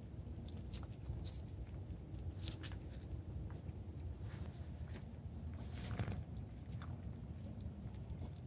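Cats licking a squeeze-tube treat and lapping water close to the microphone: irregular wet licking, lapping and chewing clicks over a low steady rumble.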